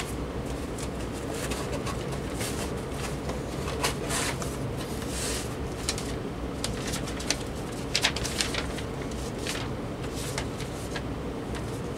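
A cardboard box being opened by hand: its flaps rustle and scrape, and a paper sheet crinkles as it is pulled out, in scattered short bursts. A steady low hum runs underneath.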